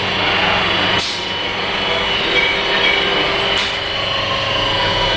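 Twin-spindle CNC vertical turning lathe running: a steady mechanical hum and hiss with a constant high whine, broken twice by a short sharp click.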